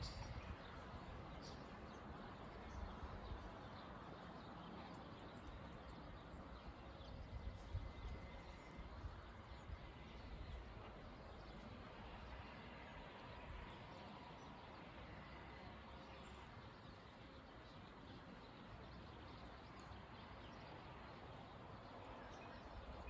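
Faint outdoor ambience: a low, even background rumble and hiss with faint distant bird calls.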